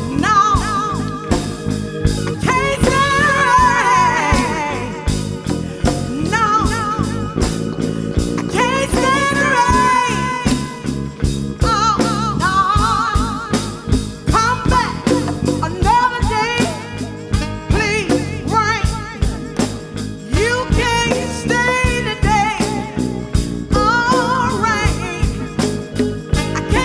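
Live soul band playing a mid-tempo groove: drum kit keeping a steady beat under bass and guitar, with a bending, wavering lead line over the top in phrases of a few seconds.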